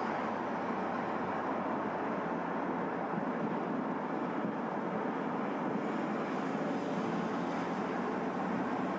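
Steady road and wind noise of a car driving at speed: an even rushing sound at a constant level, with no engine note standing out.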